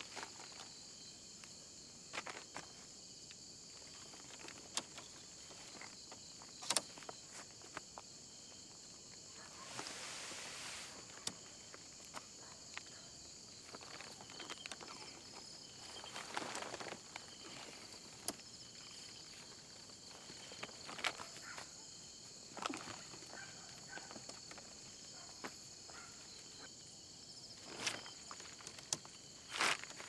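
Crickets chirring steadily, with scattered footsteps, clicks and a few short rustles from someone moving about nearby.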